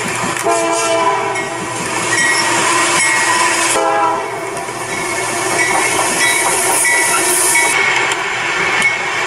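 Diesel freight locomotives passing with the rumble and clatter of the train, and several horn blasts, loudest at about half a second in and again near four seconds; the sound changes abruptly between different trains.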